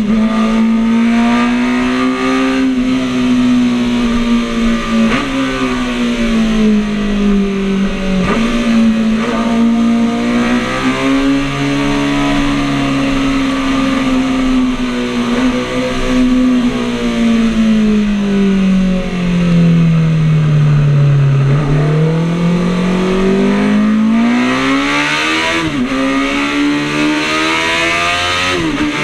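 Classic racing motorcycle's engine heard from the rider's seat, running hard at high revs. The pitch rises and falls, with a few quick drops like gear changes. About three-quarters of the way through, the revs sink to their lowest and then climb again as the bike accelerates, over rushing wind noise.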